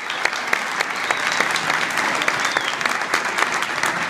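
Audience applauding: many people clapping together at a steady pace.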